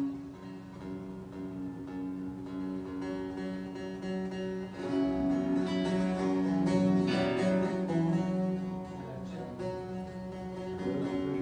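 A bağlama and an acoustic guitar playing a Turkish folk tune together, plucked and strummed, growing fuller and louder about halfway through.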